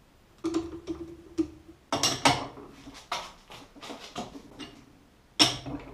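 Aluminium block being clamped by hand in a lathe's four-jaw chuck: metal clanks and clicks of the block, jaws and T-handle chuck key. The loudest knocks come about two seconds in, at about three seconds, and again near the end.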